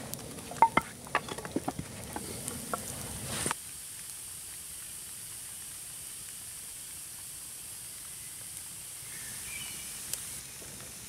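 Wood campfire of dry sticks crackling, with many sharp pops and cracks for the first three or so seconds. It then cuts suddenly to a steady faint hiss.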